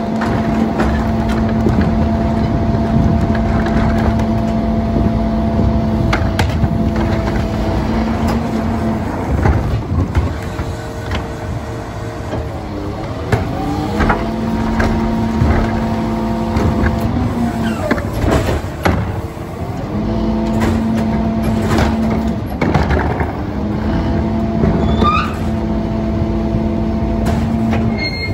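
A rear-loader garbage truck's engine and hydraulics run with a steady pitched hum, which drops away and glides back up in pitch several times as the cart tippers and packer are worked. Scattered bangs and knocks come from carts and trash hitting the hopper.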